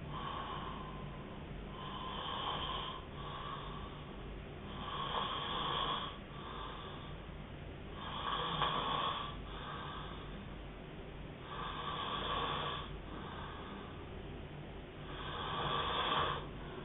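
A man snoring hard in his sleep: five loud, rasping snores about every three and a half seconds, each followed by a shorter, quieter one.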